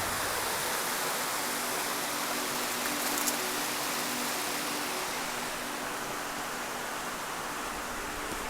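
Waterfall: falling water making a steady, even rushing noise, with a faint low hum underneath.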